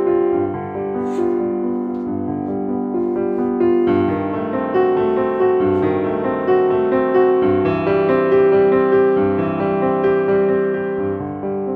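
Piano music, a steady flow of notes.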